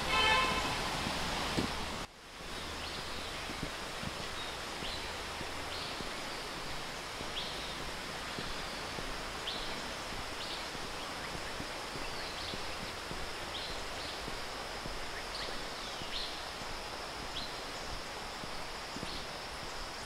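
Forest ambience: a steady high-pitched insect drone with short bird chirps every second or two. A brief loud pitched call sounds in the first second, then a sudden cut about two seconds in.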